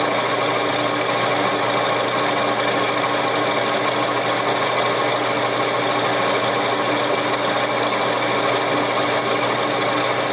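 A metalworking shop machine running steadily with an even mechanical hum, used to size a suspension spacer.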